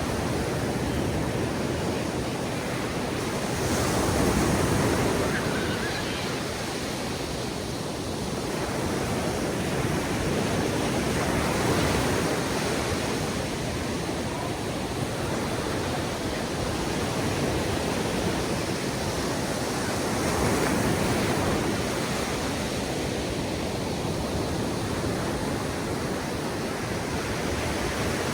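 Ocean surf breaking on a beach, a steady wash of noise that swells and eases as waves roll in every few seconds.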